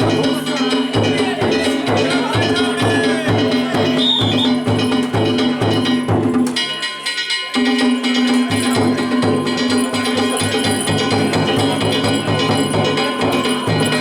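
Danjiri bayashi: festival drums and small hand gongs played in a quick, even beat. The music breaks off for about a second just past the middle, then starts again.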